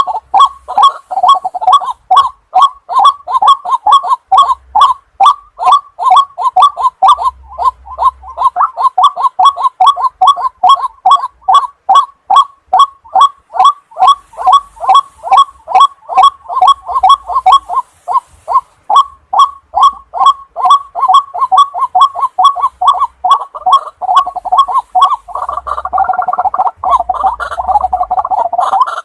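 White-breasted waterhen calling: a loud, fast series of repeated harsh notes, about three a second, going on without a break.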